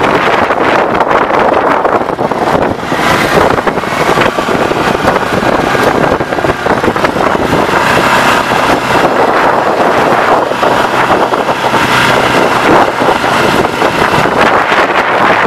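Dune buggy engine running while driving along a dirt track, with loud wind noise on the microphone.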